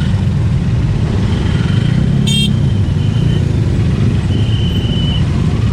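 Motorcycle and auto-rickshaw engines running in a traffic jam, a steady low drone, with a short high horn toot about two seconds in and faint thin high tones now and then.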